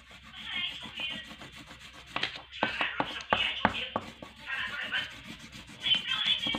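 Crayon rubbing back and forth on notebook paper in quick scratchy strokes while colouring in, busiest around the middle.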